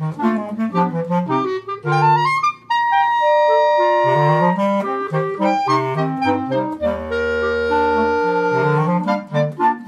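Clarinet quartet of three clarinets and a bass clarinet playing a classical piece. Quick moving lines break off briefly about two and a half seconds in, then give way to held chords with a long low bass-clarinet note underneath.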